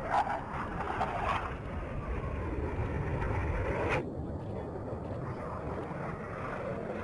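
Jet noise from KAI T-50B aerobatic jets flying the display, a continuous rushing roar with a slowly falling pitch through the middle. It changes abruptly about four seconds in.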